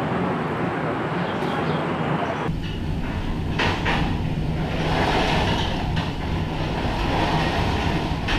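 Gondola lift station machinery running: a steady low hum and rumble from the cable drive, with a few sharp clacks near the middle as the cabins move through the station.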